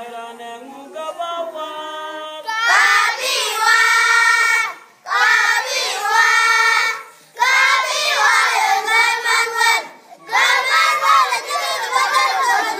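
A group of children singing a song together. They start quietly, then come in loudly after about two seconds and sing in phrases with short breaks between them.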